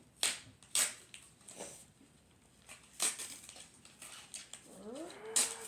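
A mailed package being handled and crinkled, with a few sharp crackles of its wrapping. Near the end a short rising voiced sound, a vocalisation.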